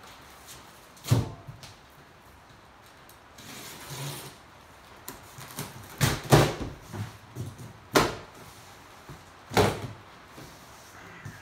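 Large cardboard shipping box being handled: a few sharp knocks and thumps as it is tipped over and pushed about, with scraping and rustling as the packing tape is slit and the flaps are worked open.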